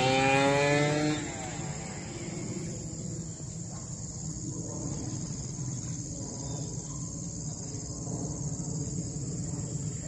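Steady high chirring of insects over a low rumble. A pitched sound with overtones holds through the first second and then stops.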